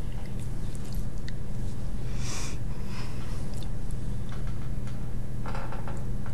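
Steady low hum and hiss in a small room, with short breaths or sniffs a little after two seconds in and again near the end.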